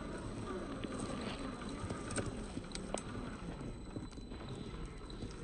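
Scale RC crawler's electric motor and drivetrain whining, the pitch rising and falling with the throttle, while its tyres crunch over loose dirt and twigs with scattered small clicks and snaps.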